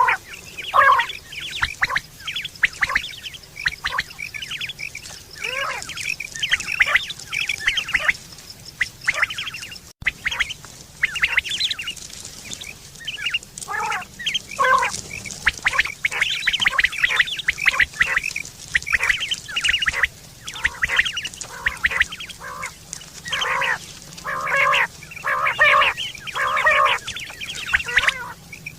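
Quail calling over and over: short, sharp calls repeated in quick, irregular runs, with several calls crowding together in places.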